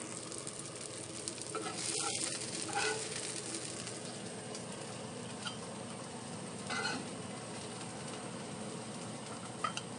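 Salted fish sizzling steadily in hot oil in a wok, with a few short scrapes and clinks of a metal spatula against the pan and plate as the fried pieces are lifted out.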